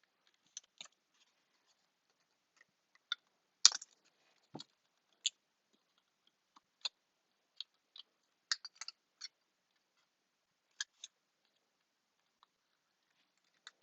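Scissors snipping: a series of short, sharp snips at an irregular pace, a few louder than the rest.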